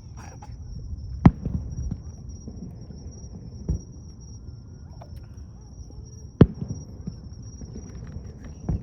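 Aerial fireworks bursting: four sharp bangs a couple of seconds apart, loudest about a second in and again past six seconds, over a steady low rumble.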